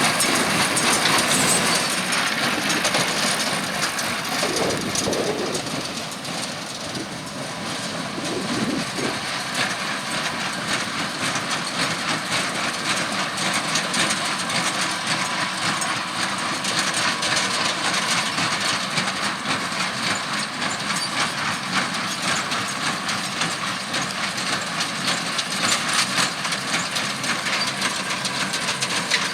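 Tractor-drawn small square baler with a Bale Baron bundler at work: a continuous mechanical clatter of rapid knocks over a running tractor engine, dipping briefly about five seconds in.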